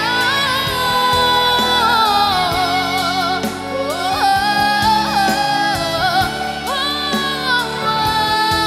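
Background music: a slow song with a singing voice holding long, wavering notes over instrumental accompaniment.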